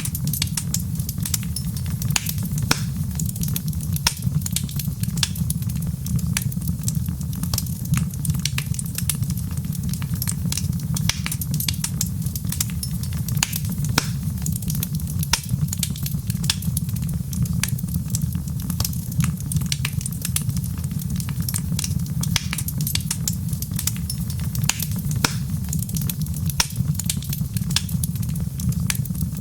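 Wood fire crackling steadily, with many small irregular pops and snaps over a constant low rumble.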